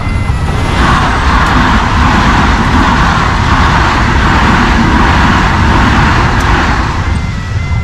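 A double-deck electric passenger train passing over a level crossing: a steady rush of wheels on rail that swells about a second in and eases near the end. The crossing's warning bells ring faintly at the start and the end.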